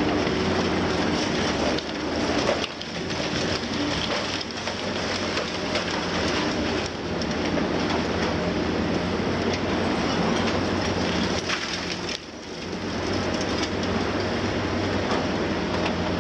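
Liebherr 954 high-reach demolition excavator working, its six-cylinder diesel engine running steadily under a continuous crackle and crunch of concrete being broken and debris falling. The noise briefly drops twice, near the start and about two-thirds through.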